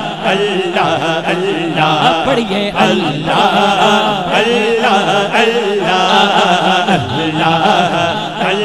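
Man's voice singing a Punjabi devotional manqabat in a drawn-out, wavering chant through a microphone and PA.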